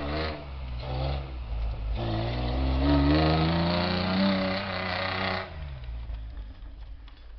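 Lifted Toyota 4Runner's engine revving hard as its tires spin through deep snow: two short blips of throttle, then a long climb in revs from about two seconds in that peaks near the middle and drops away sharply about two seconds before the end, leaving a low rumble.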